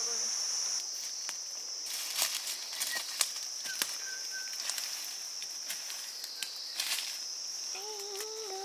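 Steady high-pitched chirring of crickets, with scattered light clicks and knocks and two short rustling swells.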